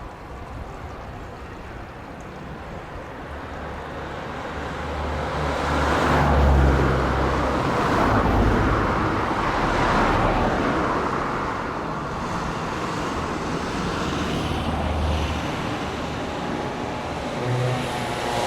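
Airbus A380 jet engines passing close on landing: a broad rush with a low rumble that swells to its loudest about six seconds in and stays loud.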